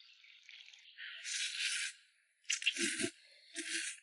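Noodles slurped from a bowl three times, each slurp a short hiss of about half a second.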